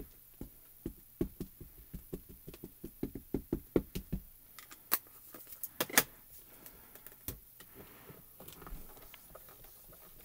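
Plastic ink pad tapped repeatedly onto a clear stamp to ink it: a run of light knocks, a few a second, for about four seconds. These are followed by a couple of sharper clicks around five to six seconds in.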